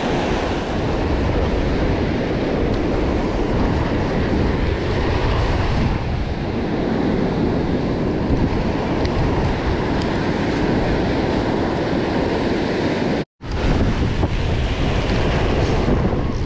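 Ocean surf washing up the beach with wind buffeting the microphone, a steady rushing noise. It cuts to silence for a split second about thirteen seconds in.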